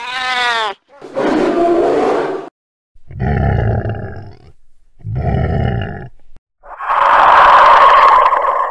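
A short cat meow rising and falling in pitch, followed by a growl and two shorter deep sounds. About seven seconds in comes the loudest sound, a long, harsh creature roar: a designed 'alien crocodile' roar sound effect.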